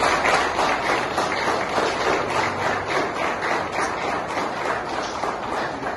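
A room full of people clapping steadily.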